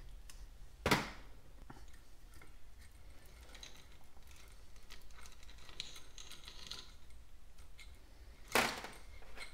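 Small metal engine parts being handled and set down on a metal workbench: a sharp clank about a second in and another near the end, with light ticking and rattling between.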